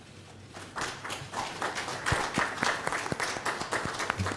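Audience applauding, starting about half a second in as a dense patter of many claps.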